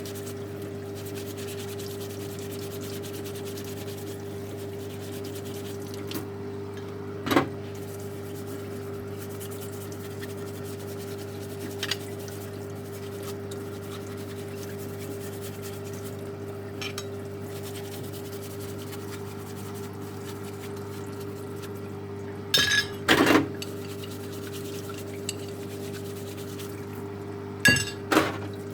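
A steady low hum with a few sharp metallic clinks and clatters: one about seven seconds in, a cluster of the loudest about 23 seconds in and another pair near the end. These are metal tools and nail gun parts being handled on a workbench as the gun is stripped down.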